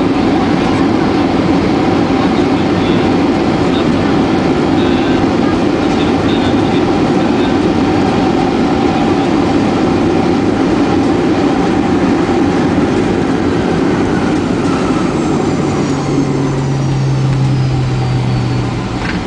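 Boeing 737-800 airliner rolling out on the runway after touchdown, heard inside the cabin as a loud, steady rush of engine and wheel noise. Past the middle a faint high whine falls in pitch, and near the end the noise eases as the plane slows.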